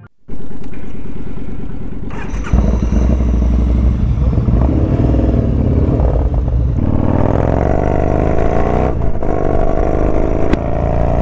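Yamaha Bolt motorcycles' air-cooled V-twin engines running, cutting in suddenly a moment in and getting louder about two seconds later. The pitch then climbs steadily as the bike accelerates away, breaks briefly near the end at a gear change, and climbs again.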